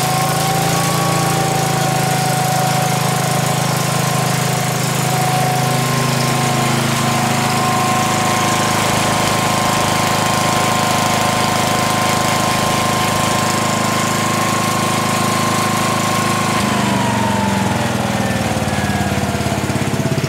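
Lincoln Weldanpower AC/DC welder-generator running at speed just after starting, on its first run after a slip-ring repair: a steady engine drone with a high steady whine. About three-quarters of the way through, the engine slows and the whine falls in pitch.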